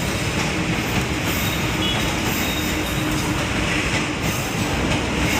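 A train running past close by: a steady rumble of wheels on the rails with a faint steady whine in the first few seconds.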